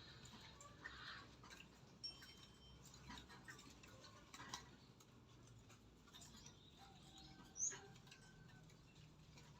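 Near silence outdoors, broken by faint scattered ticks and a few short, high bird chirps; one brief high chirp about seven and a half seconds in stands out.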